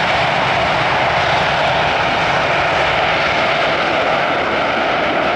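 Boeing 737-600's twin CFM56-7B turbofan jet engines running at high power as the airliner rolls down the runway: a loud, steady jet engine noise that eases slightly near the end.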